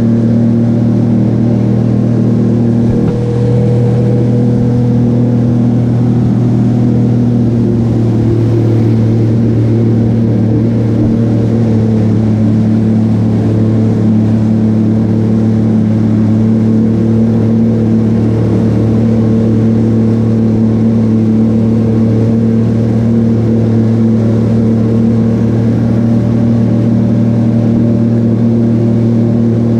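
Jet ski engine running at a steady cruising pace, a loud, constant drone with small shifts in pitch a few seconds in.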